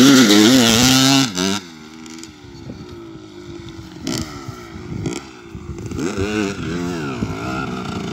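Kawasaki KX 250 dirt bike engine revving loudly at close range, dropping away suddenly about a second and a half in. It then carries on more quietly, with its pitch rising and falling as the throttle is worked on and off.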